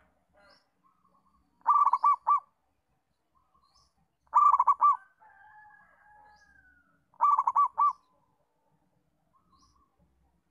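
Zebra dove (perkutut) cooing: three phrases of about four quick notes each, a little under three seconds apart.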